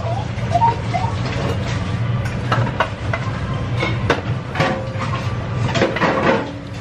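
Ramen shop background: a steady low hum with scattered short clinks and clatter.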